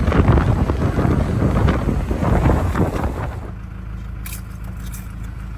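Gusty wind rumble on the microphone, then about three seconds in an abrupt change to the steady low hum of a car cabin while driving, with a couple of light clicks.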